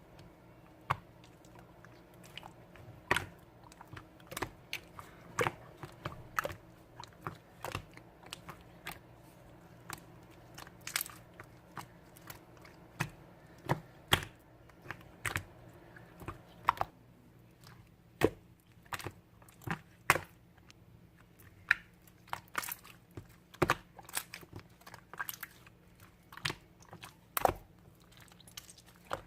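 Clear slime being pressed and squeezed by hand, giving irregular sharp clicks and pops of trapped air, a few a second.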